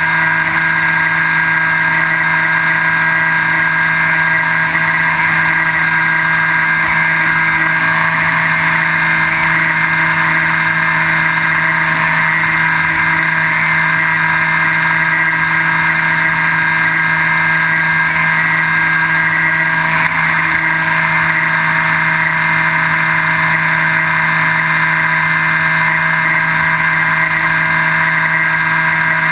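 Electric motor and propeller of a Skywalker V3 FPV wing running at steady cruise throttle, heard from the airframe itself. It is a loud, constant whine that holds one pitch throughout, over a light rush of air.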